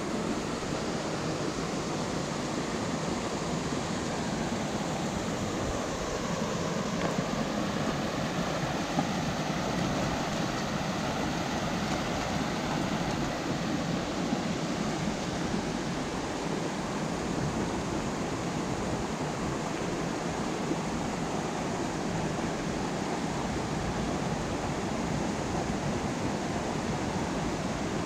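Steady rush of fast water cascading over rocks in a mountain creek.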